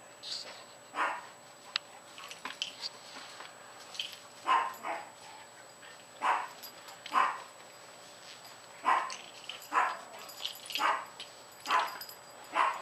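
A dog barking in play, about ten short single barks with uneven pauses between them.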